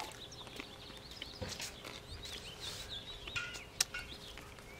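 Small birds chirping in the background, many short quick chirps, with a couple of short sharp clicks, the louder one near the end.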